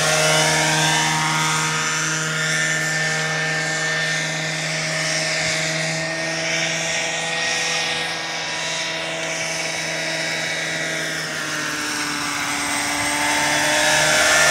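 Petrol-engined, four-blade Vario Dauphin radio-controlled model helicopter in flight: a steady engine and rotor drone. It grows fainter as the model flies off and louder again near the end as it comes back close.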